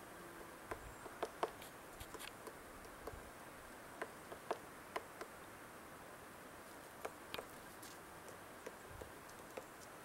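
Male hairy woodpecker excavating a tree trunk: irregular sharp pecks of its bill on wood, single taps and quick pairs or clusters with pauses between.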